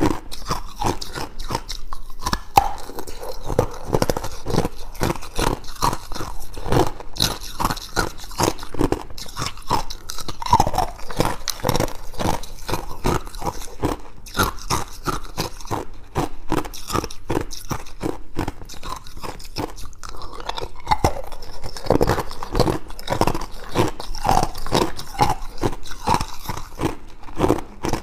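Clear ice cubes being bitten and chewed: a dense, unbroken run of sharp crunches and cracks.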